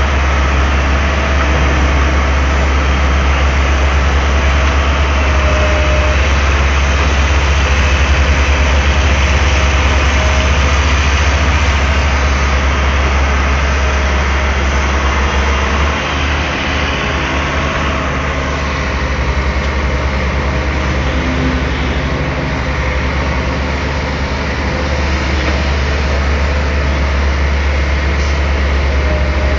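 Daewoo Solar 280 LC III crawler excavator's diesel engine running steadily with a deep, even drone, easing slightly about halfway through.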